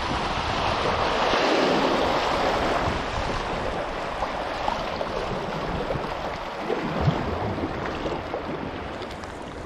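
Steady rush of moving river water around a kayak, with wind buffeting the microphone; loudest in the first few seconds, then easing off, with a light knock about seven seconds in.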